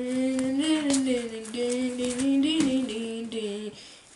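A child's voice singing a wordless tune in long held notes, rising briefly in pitch twice, then trailing off shortly before the end.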